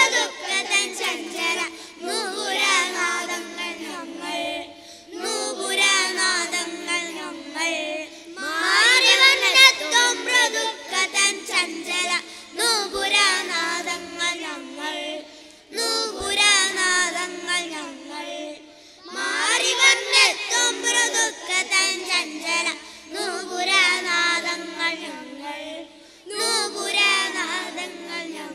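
A group of young boys singing together into microphones, in phrases a few seconds long with short breaks between them.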